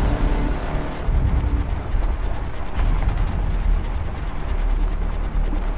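Ford Ranger Raptor's 2.0-litre bi-turbo diesel engine running hard under load on a dirt trail, a deep rumble mixed with the rushing noise of dirt and gravel sprayed up by the tyres.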